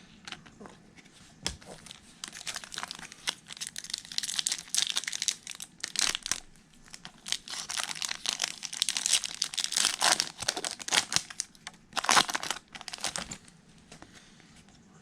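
Foil trading-card pack wrapper being torn open and crinkled in the hands, a dense crackly rustle that goes on for most of the time and dies away near the end.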